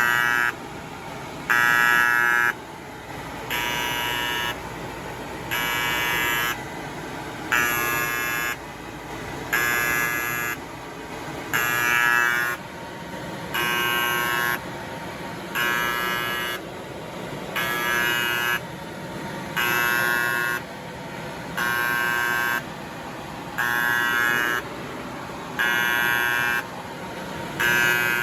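Kyungdong Navien agricultural produce dryer's warning buzzer beeping about once every two seconds, each beep about a second long. It is the overheat alarm, sounding because the safety temperature switch (a bimetal switch) has tripped and cut the power.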